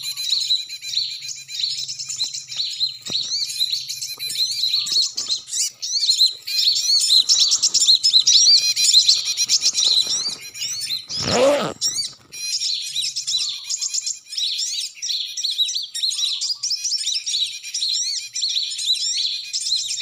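A dense, unbroken chorus of many small birds chirping and chattering, the bird-trapper's 'noisy small birds' lure sound. About eleven seconds in there is one brief, louder rustle.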